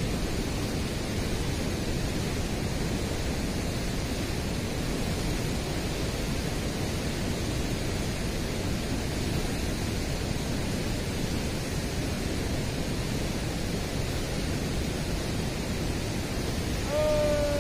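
Steady rushing noise of river water pouring through a weir. Near the end a single drawn-out tone slides slowly downward and briefly stands out above it.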